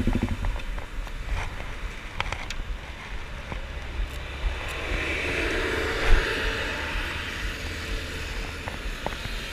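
Kawasaki Ninja 250 engine pulsing evenly, then cutting out about half a second in. Then road traffic passing, with scattered clicks and knocks and one loud thump about six seconds in.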